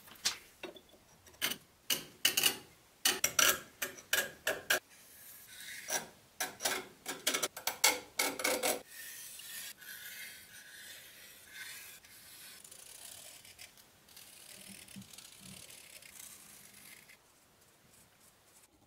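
Metal clicks and scrapes as a steel square and a steel flat bar are handled and set against each other. Then, from about nine seconds in, the steady scratchy rubbing of a marker pen drawing lines across the steel.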